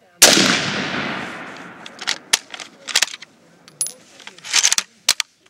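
A single rifle shot from a Mosin-Nagant M44 carbine in 7.62x54R, loud and echoing away over more than a second. It is followed by a string of short, sharp metallic clacks from the bolt being worked.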